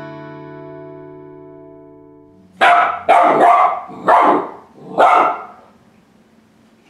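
A musical jingle's sustained chord fades out over the first couple of seconds. Then a seven-week-old golden retriever puppy barks at an exercise bike, five quick, loud barks in about three seconds.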